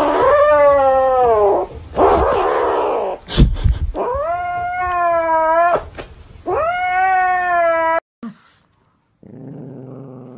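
Grey kitten yowling and growling three times in long, drawn-out wails, guarding its plush toy from a reaching hand. There is a short noisy scuffle and a knock between the first two calls.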